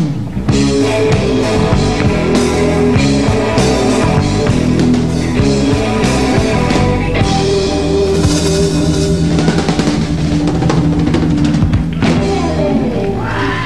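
A live rock trio of electric guitar, electric bass and drum kit playing a song, with the drums well forward. There is a cymbal wash about eight seconds in.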